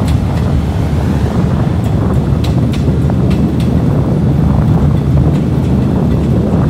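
Steady low rumble of a passenger train's coaches rolling along the rails, with wind buffeting the microphone and occasional sharp clicks.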